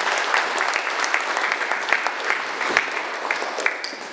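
Audience applauding, a dense patter of hand claps that thins and dies away near the end.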